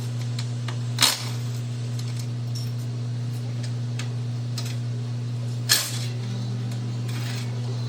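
Two sharp clinks, about a second in and again near six seconds, with a few faint ticks between, over a steady low hum.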